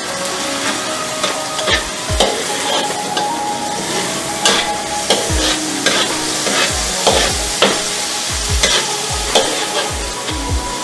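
Metal spatula scraping and knocking irregularly against a large metal wok while stirring garlic and onion frying in oil, over a steady sizzle.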